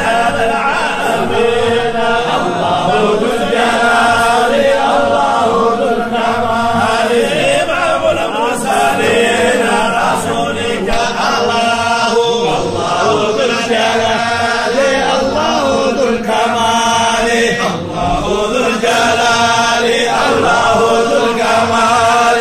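A crowd of men chanting an Islamic dhikr together, many voices in one continuous chorus.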